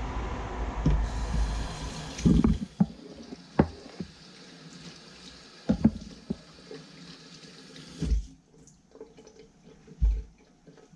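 Kitchen tap running into the sink as hands and a knife are rinsed under it. The water shuts off suddenly about eight seconds in. Several sharp knocks sound through it.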